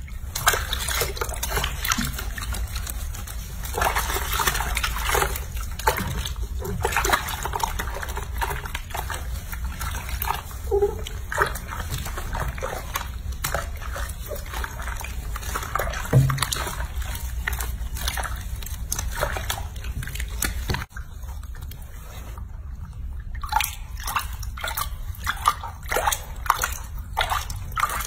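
Soapy water sloshing and splashing in a bathroom sink as hands wash and rub a baby monkey, with many small irregular splashes and a brief lull about three-quarters of the way through.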